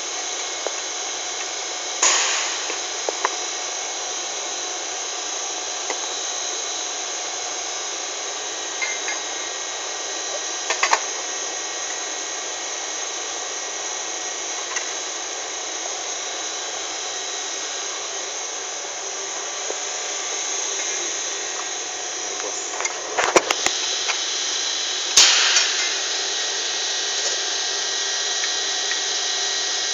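Steady whirring of running factory machinery, with several sharp metallic clicks and knocks as metal frame pieces are fitted together by hand: one about two seconds in, a few around the middle, and a cluster near the end, where the loudest knock falls.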